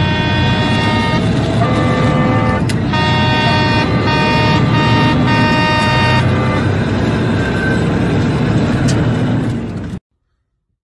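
Truck air horn blasting a chord of several tones in a series of long honks with short breaks, over the steady road and wind rumble of a moving truck. The honking stops about six and a half seconds in, and all sound cuts off abruptly near the end.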